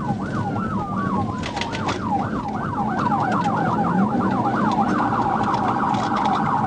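Police car siren in yelp mode, rising and falling quickly and speeding up over the first few seconds, with a slower wail sweeping under it at the start. About five seconds in, a rapid pulsing tone joins the yelp, over steady road and engine noise.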